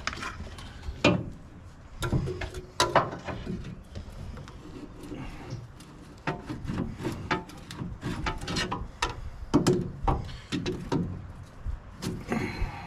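Scattered clicks, knocks and scraping of hands and tools handling parts while filters are changed on an excavator, with no steady machine sound.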